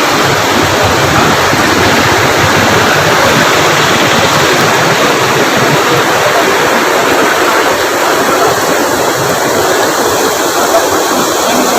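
Loud, steady rush of rainwater pouring over a full check dam.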